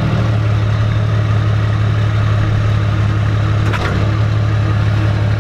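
Truck engine idling steadily, with a light clink about four seconds in.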